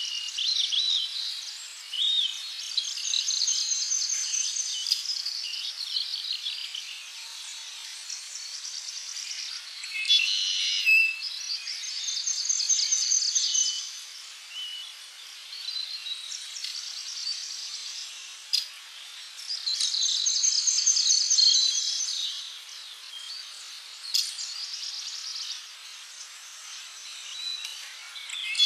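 Tropical birds chirping and singing in repeated bouts of fast, high trills a few seconds long, over a steady high hiss.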